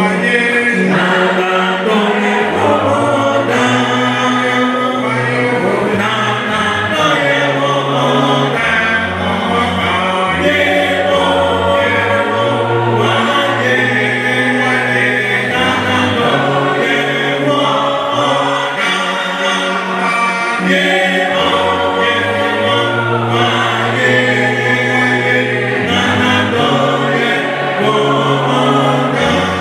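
Church choir singing a hymn unaccompanied, in several voice parts, with bass voices holding low notes beneath the melody.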